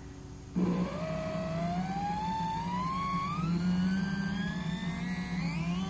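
Stepper motor starting up suddenly and whining, the whine rising steadily in pitch as the speed knob is turned up, over a steady low hum. Near the end a second, lower whine begins climbing.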